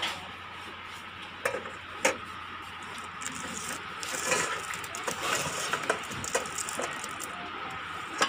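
Steel and plastic kitchenware being handled on a shop shelf: a few scattered knocks and light clatter over a steady background hum.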